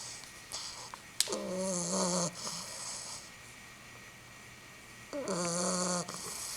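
Pit bull puppy snoring in her sleep: two drawn-out snores about four seconds apart, each a pitched nasal tone with a breathy hiss. There is a brief sharp click just before the first snore.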